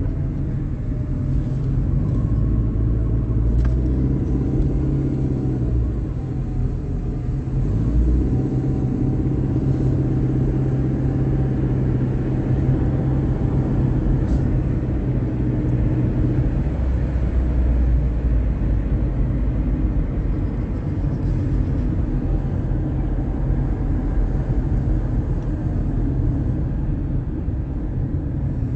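Car engine and road noise heard from inside a moving car: a steady low rumble, with the engine note shifting pitch a few times.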